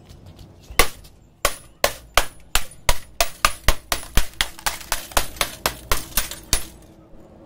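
Claw hammer striking the glass faceplate of a CRT television tube about twenty times in quick succession, roughly three sharp blows a second, breaking the screen glass apart.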